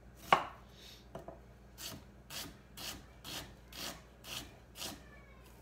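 Chef's knife chopping an onion on a wooden cutting board: one sharp knock of the blade on the board, then a steady run of softer slicing strokes, about two a second.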